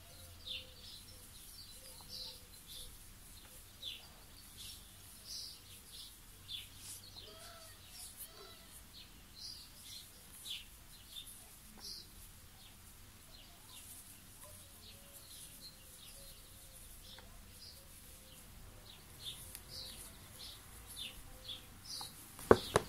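Faint, short, high bird chirps repeating irregularly, about one a second, over quiet room tone; a single sharp click near the end.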